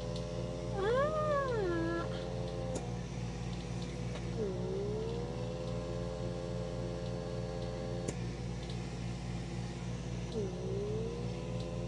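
Handheld electric pore vacuum running on its stronger second suction setting: a steady buzzing hum with a whine that dips and rises in pitch as the nozzle grips and moves over the skin, then holds level. There are a couple of faint clicks.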